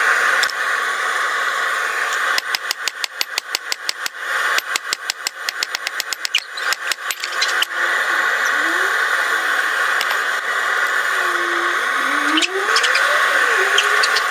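Steady roar of a small homemade forge. From about two seconds in until nearly eight seconds it is broken by a quick run of sharp metal strikes, about five or six a second, at the anvil.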